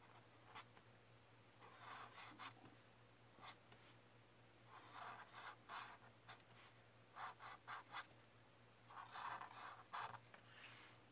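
Faint sound of a marker scratching across paper in short strokes as letters are hand-written, coming in small clusters every second or two.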